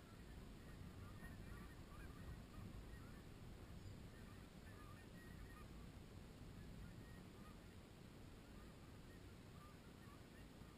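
Distant flock of Canada geese honking faintly, many short calls overlapping throughout, over a low steady rumble.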